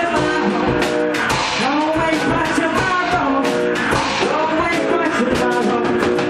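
Rock band playing live in a small room: electric guitars over drums, with frequent cymbal and drum hits.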